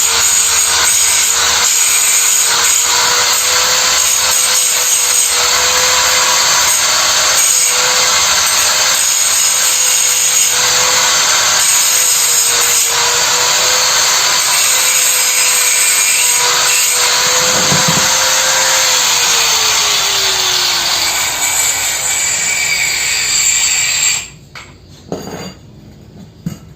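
Stick arc welding from a Lakoni 450-watt welder: a steady, loud crackling hiss as weld is laid onto the worn spiral auger of a meat mincer. A hum beneath it sinks in pitch, the arc cuts off suddenly near the end, and a few light metallic clinks follow.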